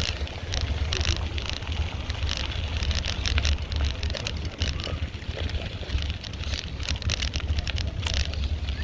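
Riding noise from a bicycle in motion: a steady low rumble of wind on the microphone, with frequent irregular clicks and rattles throughout.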